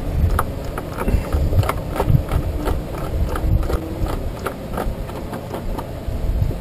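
Irregular light clicks and knocks, a few each second, from hands fitting a tube back onto the top of a Yamaha outboard engine, over a low rumble.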